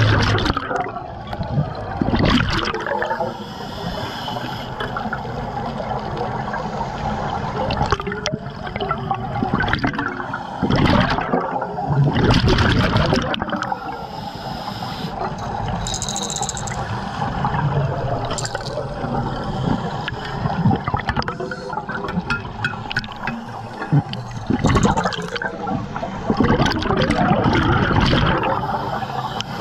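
Scuba diver breathing underwater through a regulator: gurgling bursts of exhaled bubbles every few seconds over a steady watery rush.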